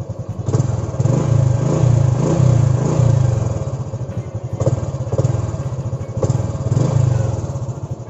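Honda motorcycle engine running as the bike is ridden along, its level swelling and easing a few times.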